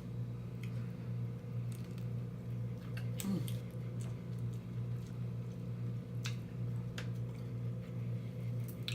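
Close-up eating of a seafood boil: a few scattered wet mouth smacks and squishy chewing clicks over a steady low hum.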